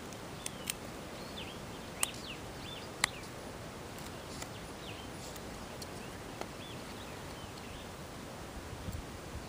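Fixed-blade knife whittling a small wooden stick: a few sharp clicks as the blade bites and shavings come off in the first three seconds, over a steady outdoor hiss with faint high chirps in the background. Near the end, soft handling bumps as the stick and shell are picked up.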